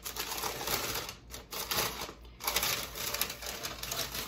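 Thin white packing paper crinkling and rustling as it is pulled off a wrapped item, in irregular bursts with two brief pauses.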